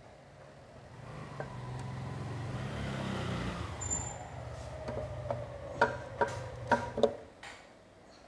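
A motor vehicle's engine swells and then fades with a falling pitch, as when a vehicle drives past. Four or five sharp knocks follow near the end.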